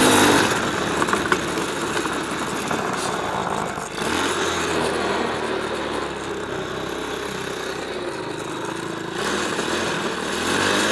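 Small off-road engine running at low revs, steadying to an even low drone about four seconds in, with wind-like noise over it; the revs climb again near the end.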